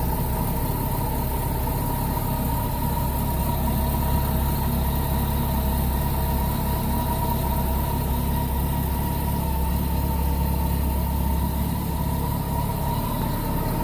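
Kawasaki Concours inline-four motorcycle engine idling steadily just after being started, with a steady high whine over it.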